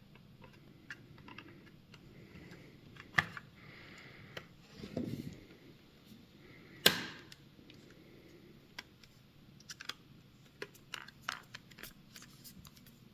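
Black plastic back cover of a Nintendo Switch being handled and fitted onto the console, with scattered light clicks and taps of plastic on plastic. Two sharper clicks come about three and seven seconds in, a short scraping rub falls between them, and a run of small clicks follows near the end as the cover is pressed to snap into place.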